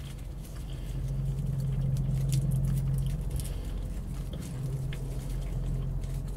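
Fingers peeling and breaking roasted soap plant bulbs, making faint small ticks and crackles, over a steady low hum that swells slightly a couple of seconds in.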